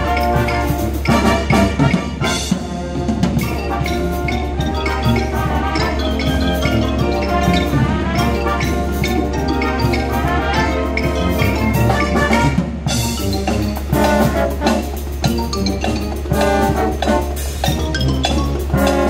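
Live brass band playing, with trumpets and trombones over a drum kit, cymbals and mallet percussion such as marimba and xylophone.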